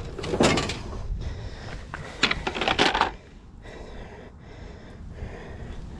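Knocks and rattles from handling a fish measuring board and the fish on it: two short clusters of sharp clatter in the first half, then only a quiet hiss.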